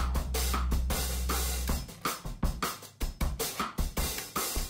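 Outro music with a drum-kit beat, hi-hat and cymbal hits about four times a second. A held low bass note drops out just under two seconds in, leaving the drums.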